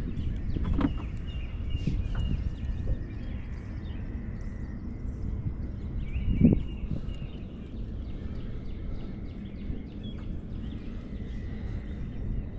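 Wind rumbling on the microphone, with birds chirping faintly behind it. A single dull thump comes about six and a half seconds in.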